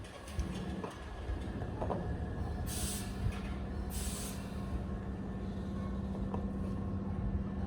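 Tobu 8000-series electric train at a station platform: a steady low rumble and hum, with two short bursts of hiss about three and four seconds in.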